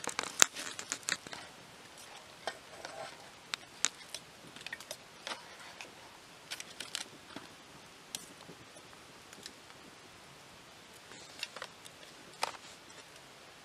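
A spoon clinking and scraping against an open tin can and plates as food is dished out: scattered sharp clicks, busiest in the first second or so and again near the end.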